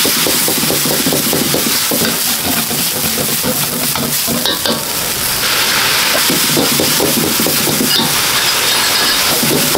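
Food sizzling as it is stir-fried in a wok, with a metal ladle scraping and clattering against the pan. The sizzle grows louder a little past halfway.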